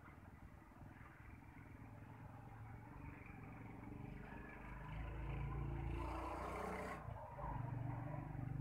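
Low rumble of a running vehicle engine, louder from about halfway through, with a brief hiss about six seconds in.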